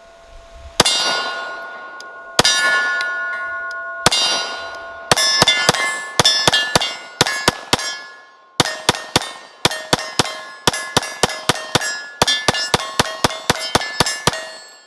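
9mm Glock P80 pistol firing at steel targets, each shot followed by the clang and ring of a struck steel plate. It starts with three single shots about a second and a half apart, then two rapid strings with a short pause between them.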